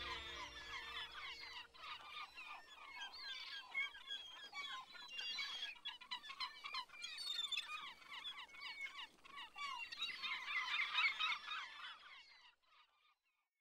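Many birds chirping and calling at once in a busy, overlapping chorus that fades out near the end. Background music dies away in the first second or so.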